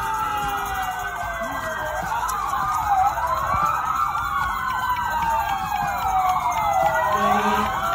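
Several emergency-vehicle sirens wailing at once, their slow rising and falling pitches overlapping and crossing each other.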